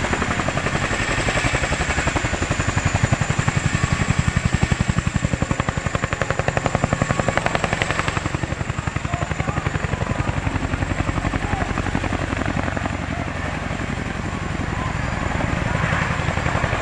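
CH-47J Chinook tandem-rotor helicopter lifting off and hovering low: a rapid, steady beat from its rotor blades over the sound of its twin turboshaft engines, with a high, steady whine.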